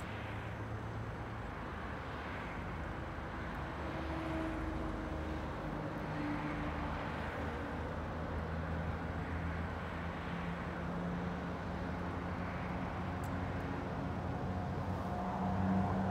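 Steady street traffic noise from passing vehicles, with engine hum that slowly shifts in pitch and grows a little louder near the end.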